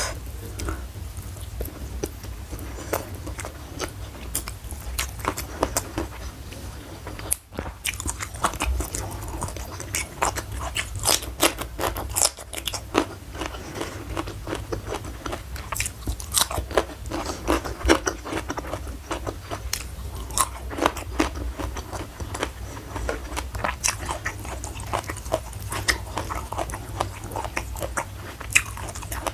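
Close-miked chewing and crunching of food, with many irregular crisp crackles and wet mouth sounds.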